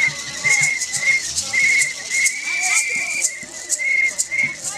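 Protest whistles blown again and again in short trilling blasts, one held longer about two and a half seconds in, over the rattle of a plastic maraca being shaken.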